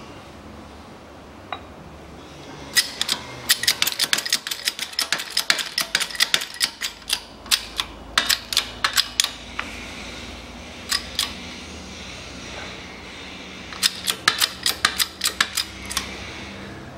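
Rapid runs of sharp metallic clicks and clinks from steel press tooling (a seal driver and an adapter plate) being handled and fitted on a hub in a shop press. There are two bursts, a long one early on and a shorter one near the end, with a few single clicks between.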